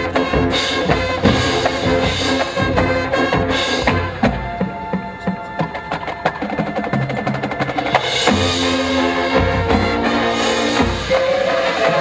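High school marching band playing its field show. Sharp, busy percussion hits come first, then a lighter passage of held notes, then low sustained chords with heavy drum hits from about eight seconds in.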